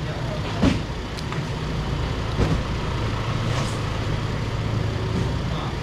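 An engine idling with a steady low rumble, with three short knocks over it.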